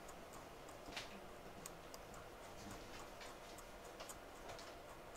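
Faint, scattered light clicks and ticks, a handful over a few seconds, against a quiet background.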